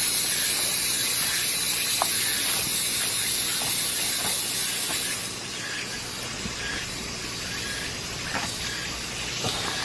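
A steady hiss, strongest in the high treble, that drops in level about five seconds in.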